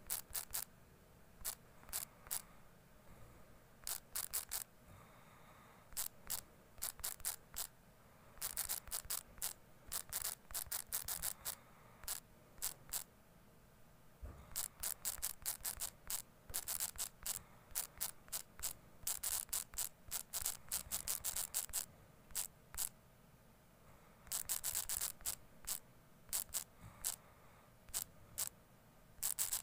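Typing on a smartphone's touchscreen keyboard: sharp, quick key-tap clicks in bursts of several taps, with short pauses between bursts.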